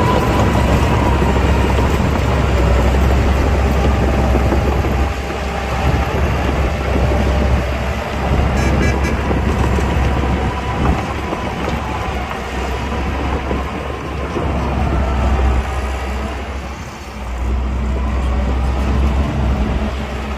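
Heavy diesel earthmoving machinery running: a loud, steady, deep engine rumble, dipping briefly about five seconds in and again a few seconds before the end.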